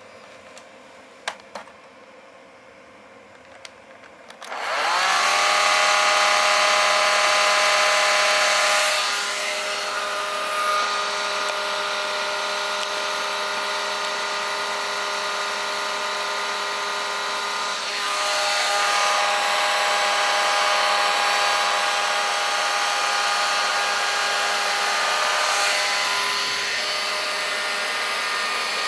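Hair dryer switched on after a few clicks, its motor spinning up about four seconds in to a steady loud blowing with a whine. It gets quieter a few seconds later and louder again about halfway through.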